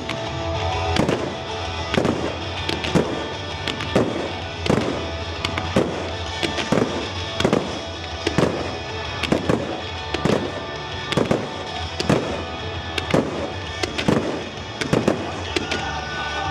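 Fireworks going off in a run of sharp bangs, roughly one a second, over background music.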